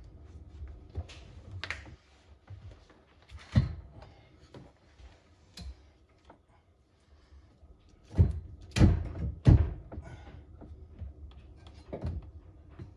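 Irregular knocks and thumps from work inside a car's shell, with three loud thuds close together about eight to ten seconds in.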